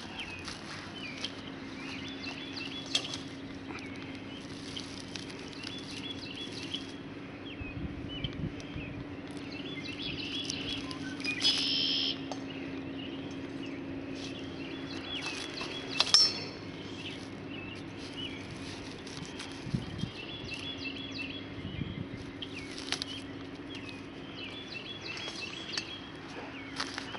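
Songbirds singing short, repeated chirping phrases, over scattered rustles and crackles of dry straw mulch underfoot and a faint steady low hum. A louder rustle comes about 12 seconds in and a sharp snap about 16 seconds in.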